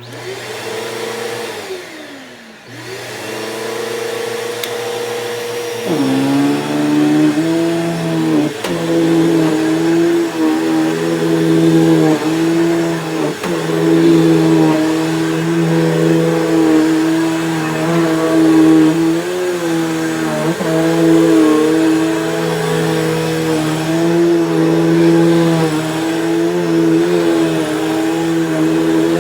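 Vacuum cleaner running steadily. Near the start its motor winds down and dips, then comes back up. About six seconds in its pitch drops to a lower steady hum under load and holds there while vacuuming carpet. The owner thinks its brush is going bad.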